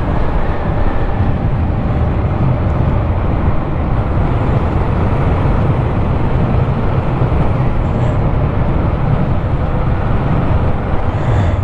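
Steady rushing wind and road noise while riding, even throughout with no distinct events.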